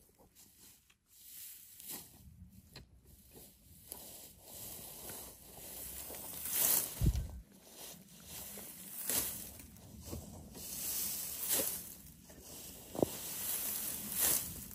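Dry grass and reed stalks rustling and crunching in uneven bursts as someone steps through and moves them, with a couple of dull thuds.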